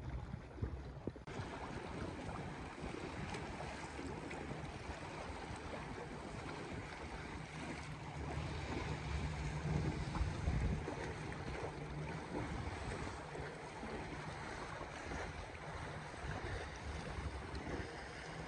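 Wind buffeting the microphone over the wash of sea waves against the breakwater's rocks, a steady noisy rush with a low rumble that grows louder for a moment just past halfway.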